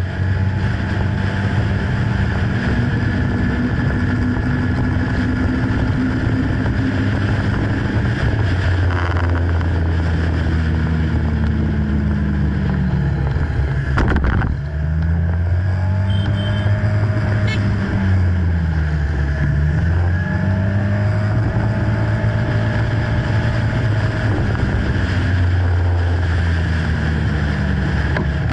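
Engine of the vehicle carrying the camera running as it drives along, its pitch rising and falling again and again as speed changes. A single sharp knock about halfway through.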